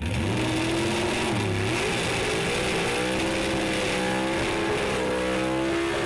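Drag racing car's engine at full power, starting abruptly. Its pitch dips briefly about a second and a half in, then climbs slowly.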